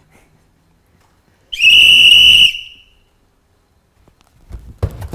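A referee's whistle blown once, a single loud blast of about a second, signalling the penalty kick to be taken. A few knocks and voices come near the end.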